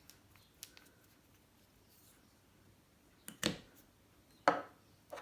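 A few light taps and clicks from small objects being handled, two sharper ones about three and a half and four and a half seconds in, over quiet room tone.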